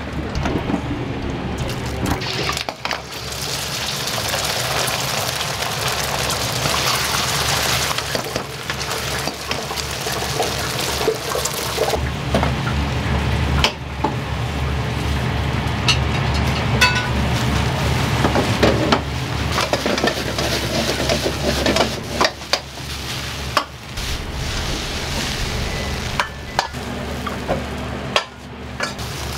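Food sizzling in a hot wok, with the metal ladle clanking sharply against the wok now and then over a steady low rumble.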